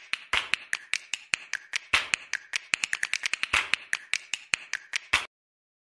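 Sharp, evenly spaced clicks, about five a second with some louder than others: a percussive intro sound effect. They cut off suddenly near the end.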